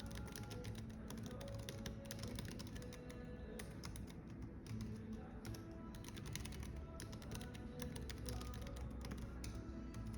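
Computer keyboard typing, a quick, irregular run of key clicks that goes on throughout, over soft background music.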